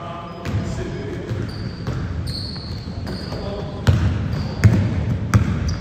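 Basketball bouncing on a hardwood gym floor during play, with several sharp bounces in the second half. Short high squeaks and players' voices echo in the hall.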